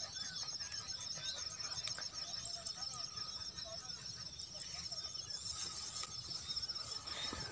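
Rice-field ambience: scattered bird chirps over a steady, high, pulsing trill that runs without a break.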